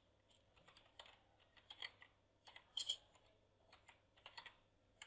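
Faint typing on a computer keyboard: a string of irregular, quick keystrokes, a short command being typed.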